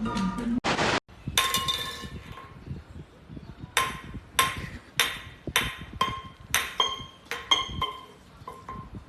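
A series of sharp clinks on a hard object that rings. There are roughly one to two strikes a second, and each rings briefly at the same pitch. A short bit of music ends just before them.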